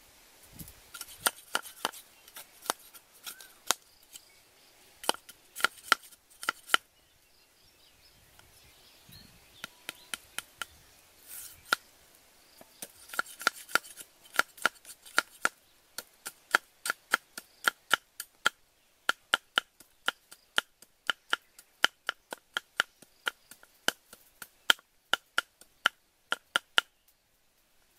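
Cleaver blade striking thin bamboo sticks against a round wooden chopping block. It is a run of sharp, separate knocks, each with a short ring, uneven at first with a pause of a couple of seconds, then a steady series of about two knocks a second.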